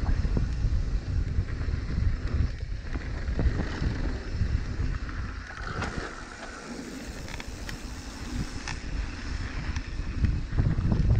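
Wind rushing over the microphone with the rumble and clatter of a mountain bike riding down a trail; it eases off for a few seconds in the middle.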